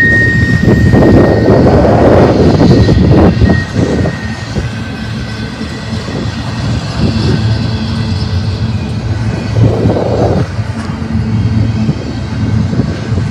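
Empty intermodal well cars of a freight train rolling past close by: a steady rumble and clatter of steel wheels on rail, loudest in the first few seconds. A thin high wheel squeal fades out over those first seconds.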